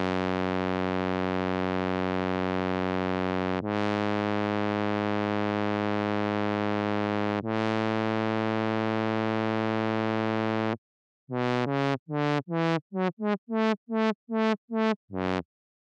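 Synth sound played on an Akai MPC Live 2: three long held notes, the pitch stepping between them, then after a short gap a quick run of about a dozen short notes that stops shortly before the end. This is the freestyle ending of the jam, and its final notes are kept as a riff of their own.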